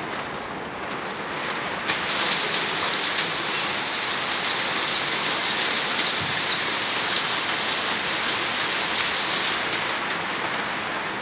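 Heavy rain pouring onto standing floodwater, a steady dense hiss that grows heavier about two seconds in.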